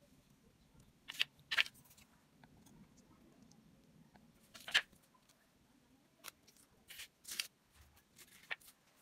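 Scattered short clicks and rustles, about seven in all, as hands handle a small acrylic paint tube and a plastic paint palette. The tube's cap is unscrewed and paint is squeezed onto the palette. A faint low hum runs underneath.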